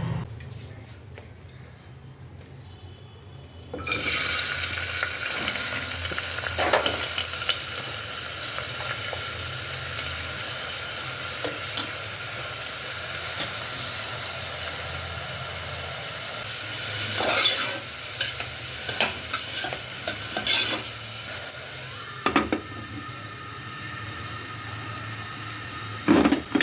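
Food sizzling in hot oil in a pan; the sizzle starts suddenly about four seconds in and then runs steadily. A spatula scrapes and stirs in the pan a few times.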